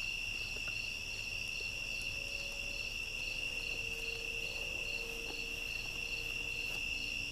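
Night insect chorus: a steady high-pitched trilling, with a second insect's pulsed call repeating evenly about twice a second over it.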